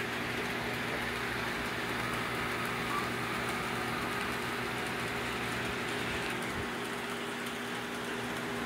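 Two small electric model train locomotives running laps on a plastic oval track: a steady whir of their motors and wheels on the rails, with a steady low hum underneath.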